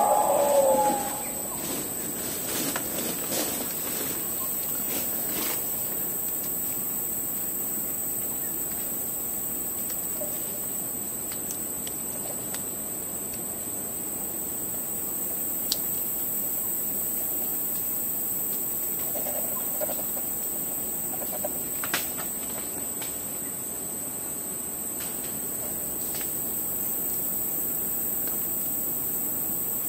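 Steady high-pitched buzz of tropical forest insects, with a loud bird call in the first second and a few scattered faint clicks.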